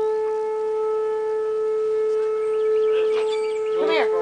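Outdoor tornado warning siren sounding one steady, unwavering tone, loud and sustained.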